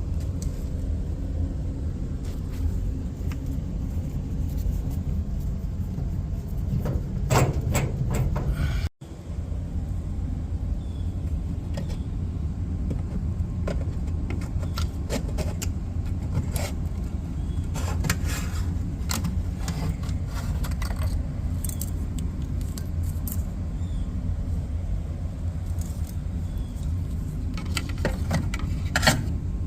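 Samsung clothes dryer running: a steady low rumble with irregular rattling and clicking over it, heavier in stretches. The sound briefly cuts out about nine seconds in.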